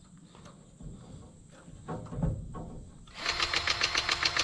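Grease gun pumping grease into a grease fitting on a square baler: a run of quick, even pulses, about seven a second, starting about three seconds in and lasting over a second, with some handling knocks before it.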